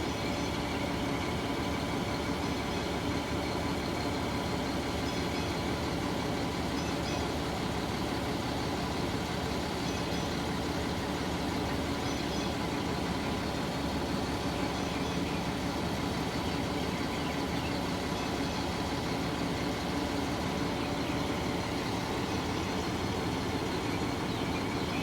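A heavy engine running steadily at a constant speed, with no revving or pauses.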